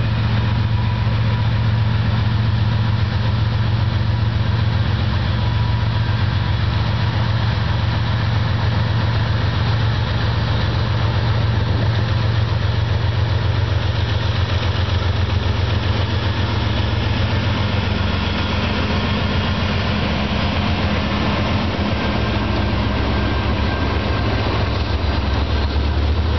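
Norfolk Southern diesel-electric freight locomotives running past at slow speed, their engines making a heavy, steady low drone as the train rolls by.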